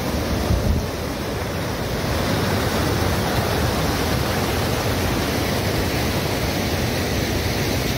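Wind blowing across the microphone: a loud, steady rushing noise with an uneven low rumble of buffeting, cutting in suddenly at the start.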